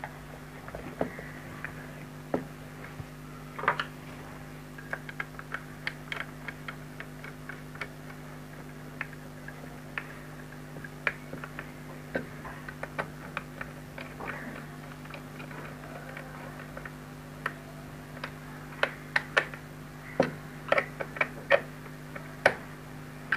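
A small screwdriver driving screws into the plastic cover of an electrical extension box: irregular light clicks and ticks of the tool and screws against the plastic, busier and louder in the last few seconds.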